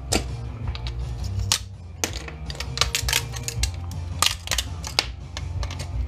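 Components being snapped and broken off a monitor power-supply circuit board with tongue-and-groove pliers: an irregular series of sharp cracks and clicks. Steady background music plays underneath.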